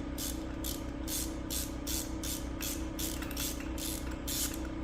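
Hand ratchet working a spark plug loose, its pawl rasping in short, even strokes about three a second over a steady low hum.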